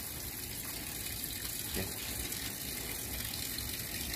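Water running steadily, as a little water is added to the live eels.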